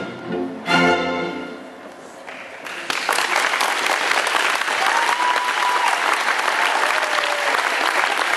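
School orchestra, strings to the fore, ending a piece on a final chord that dies away; after a short hush, audience applause starts about three seconds in and goes on steadily.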